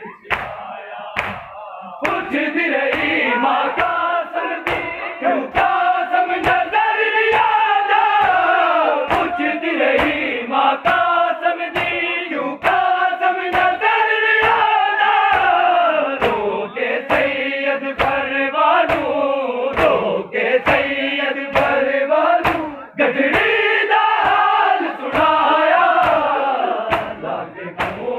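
Men chanting a Punjabi noha, a mourning lament for Qasim, in a sung call-and-response over rhythmic matam. Hands strike bare chests together at about two beats a second.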